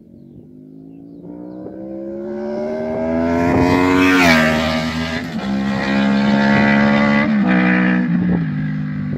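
Honda VFR800F's V4 engine through an SC Project Conico slip-on silencer with the dB killer removed, accelerating past. The pitch climbs as the bike approaches, drops sharply as it passes about four seconds in, then falls in steps with upshifts as it pulls away.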